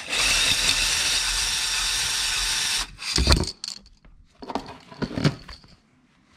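Cordless drill spinning a spring-loaded cylinder hone inside a Ski-Doo snowmobile engine cylinder: a steady whirring scrape for nearly three seconds that stops suddenly. A loud knock follows, then a few lighter knocks as the parts are handled.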